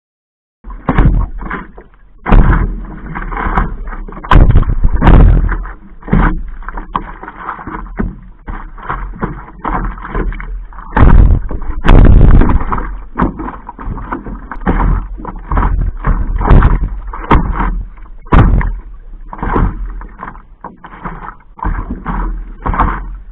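Water splashing and sloshing around a stand-up paddleboard's nose-mounted action camera as the board is paddled through small chop. It comes in loud, irregular surges over a steady low rumble, starting just under a second in.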